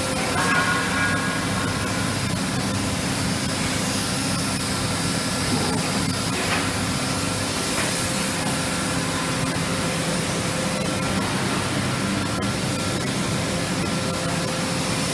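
Steady workshop machinery noise: a constant hiss over a low hum with a couple of steady tones, from equipment or ventilation running in the fabrication shop.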